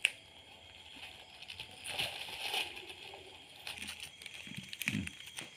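Faint rustling and light crackling, typical of handling noise, with a sharp click at the start and a few soft knocks near the end.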